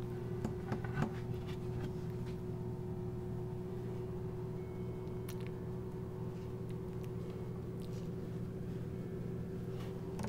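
A steady mechanical hum in a small room, with a few faint clicks about a second in, around the middle and near the end.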